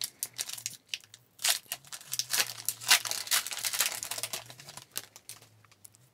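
Foil wrapper of an Upper Deck hockey card pack being torn open and crinkled by hand: a run of sharp crackles and rips that thin out near the end.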